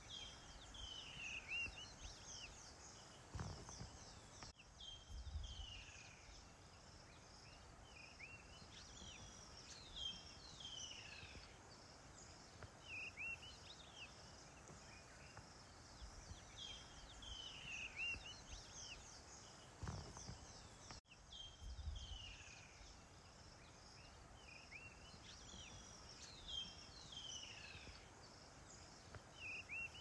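Faint bush ambience: birds calling with short chirps and falling whistled notes over a steady insect hiss, with a couple of dull low thumps. The whole bed repeats about every sixteen seconds, as a looped ambience track does.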